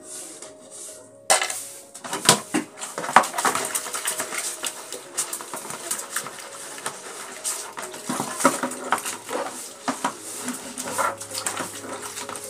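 Dishes being washed by hand: plastic basins and utensils knocking and clattering against each other with scrubbing, in irregular clusters of sharp knocks that begin suddenly about a second in.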